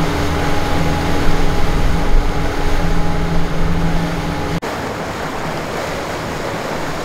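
Cruise boat under way: its engine drones steadily over the rush of churning wake water and wind on the microphone. About four and a half seconds in the sound cuts abruptly to a somewhat quieter rush of wind and water without the engine drone.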